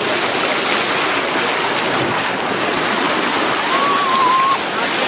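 Heavy sea surf breaking and washing against a rocky shore, a steady, loud rush of water. A faint wavering tone is heard briefly about four seconds in.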